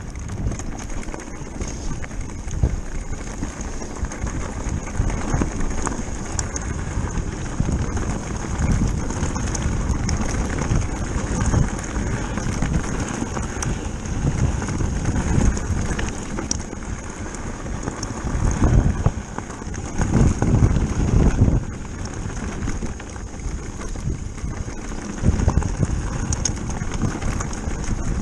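Mountain bike tyres crunching and rattling over a loose stony track, with heavy wind buffeting the camera microphone in gusts.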